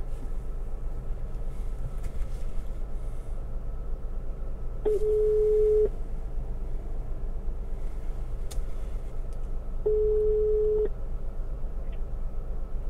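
Telephone ringback tone playing through the car's speakers as an outgoing call rings: two steady one-second tones about five seconds apart, over a low steady hum.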